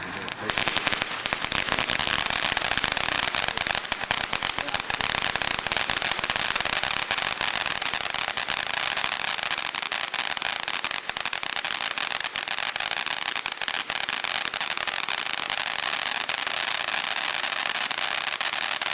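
White strobe firework burning, a dense, continuous stream of rapid crackling pops that starts about half a second in and keeps an even level.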